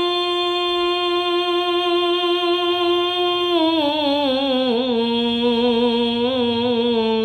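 A man singing an unaccompanied devotional salam (naat), holding one long steady note for about three and a half seconds, then sliding down to a lower note that he ornaments with small wavering turns.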